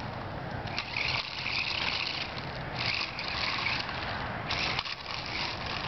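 Small electric motors of toy remote-control cars whirring in three bursts, stopping and starting as the cars are driven.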